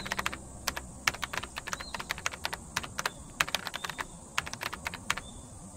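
Computer-keyboard typing sound effect: irregular, quick key clicks, several a second, over a steady high hiss.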